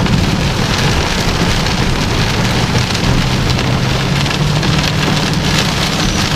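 Heavy rain drumming steadily on a moving car's roof and windshield, heard from inside the cabin, with a steady low vehicle hum underneath.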